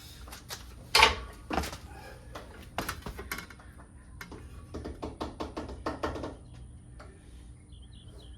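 Knocks and taps of a stainless steel rub plate being bent and pressed to fit a boat's bow. A loud knock comes about a second in, then a few more, then a quick run of lighter clicks in the middle.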